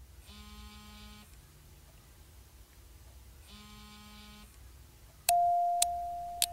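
Added sound effects: two soft, steady electronic tones each about a second long, then a loud bell-like chime about five seconds in that rings on and fades slowly, with sharp ticks over it like a clock.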